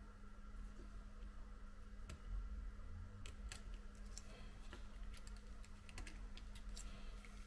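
Faint, scattered small clicks and taps of a plastic spudger prying at an iPhone XS's screen flex connectors, over a steady low hum.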